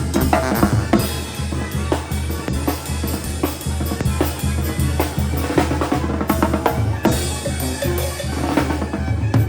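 Mexican banda music with a driving drumbeat: bass drum and snare hits over steady deep bass notes.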